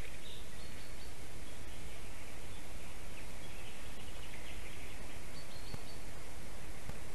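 Steady hiss of outdoor background noise with a few faint, short, high bird calls scattered through it.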